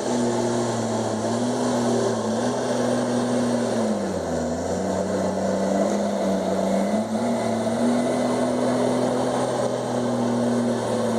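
Komatsu D51EX bulldozer's diesel engine running steadily. Its pitch drops about four seconds in and rises back a few seconds later.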